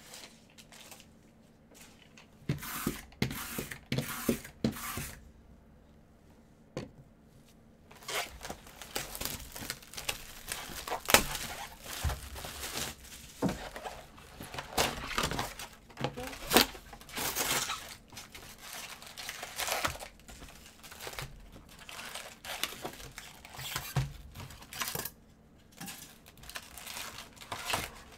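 Plastic shrink-wrap being torn and crinkled off a 2019 Bowman Draft Super Jumbo box of baseball cards, with its cardboard lid being worked open. A few short tearing bursts come a couple of seconds in, then near-continuous crinkling and ripping from about a third of the way through.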